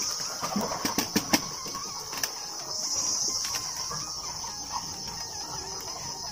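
Insects chirring steadily in a high, even band, swelling a little in the middle. A few sharp clicks and knocks come about one to two seconds in.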